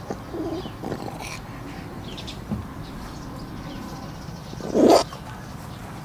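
A domestic cat chewing and gnawing at a raw dry-aged steak bone, with faint scattered mouth sounds, and one short loud sound about five seconds in.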